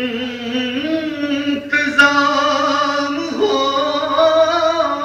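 A man singing a naat, an Urdu devotional poem in praise of the Prophet, solo and unaccompanied, in long held notes that slide from pitch to pitch.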